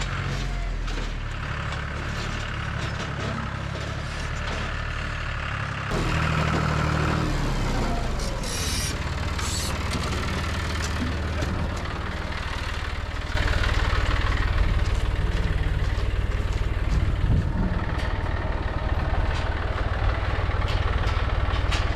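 Engine running steadily, getting louder in sudden steps about 6 and 13 seconds in.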